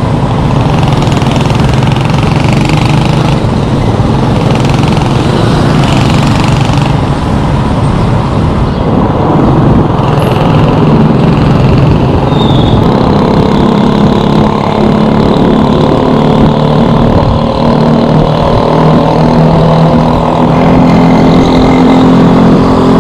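Road traffic heard from a moving e-bike: the engines of motorcycle sidecar tricycles running close by over a steady rush of wind on the microphone. In the second half one engine drones steadily alongside.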